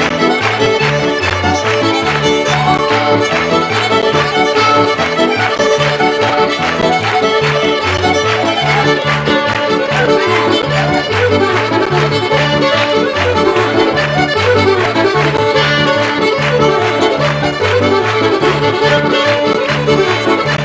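Accordion and fiddle playing a Scottish traditional tune together, with a regular bass rhythm underneath.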